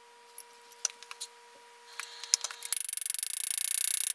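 Scattered light clicks and taps, then about three seconds in a second and a half of rapid scratchy rasping, the loudest sound: the camera rubbing against a cotton shirt.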